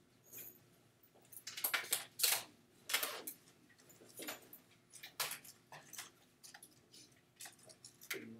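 A run of irregular light clicks and taps, thickest and loudest about one and a half to three and a half seconds in, then sparser, from the working out of a calculation.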